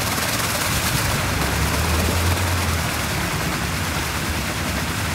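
Steady rush of churning, splashing water at the foot of a concrete wall, with a low rumble underneath that swells briefly midway.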